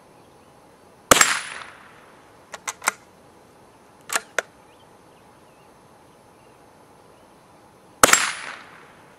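Two shots from a Stevens Model 56C bolt-action .22 LR rifle, about seven seconds apart, each a sharp crack with a short ringing tail. Between them come a few quick metallic clicks as the bolt is cycled to chamber the next round.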